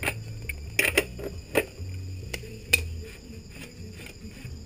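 Several sharp metallic clinks of hand wrenches against the steel of a motorcycle's rear axle and chain adjuster. Background music with a steady bass beat plays throughout.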